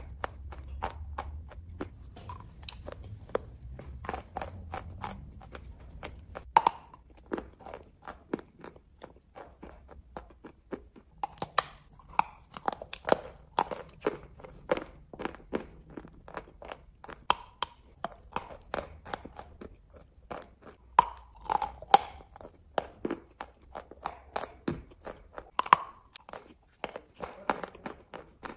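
Close-up biting and chewing of a chalk block, partly coated with clay paste: many crunches and sharp snaps in quick, irregular succession.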